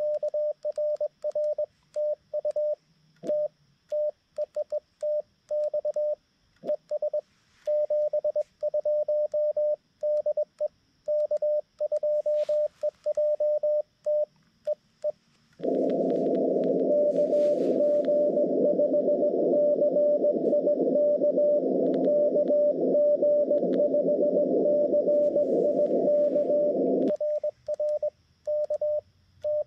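Xiegu G90 transceiver's CW sidetone: one steady tone keyed on and off in Morse code as the operator sends, with silent gaps between the elements. About halfway through the receiver opens to band hiss in a narrow CW filter with a faint Morse signal in it, and the keyed sidetone comes back near the end.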